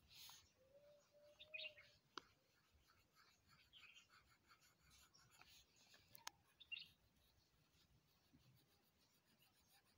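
Faint scratching of a pencil drawing short strokes on paper, with a couple of sharp ticks.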